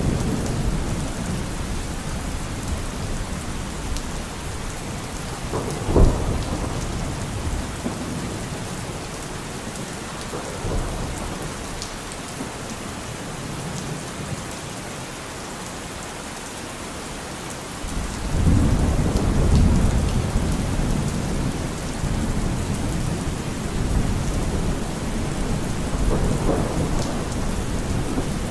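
Steady rain falling during a thunderstorm. A sharp thunder crack comes about six seconds in, and a louder, longer rumble of thunder swells up about two-thirds of the way through.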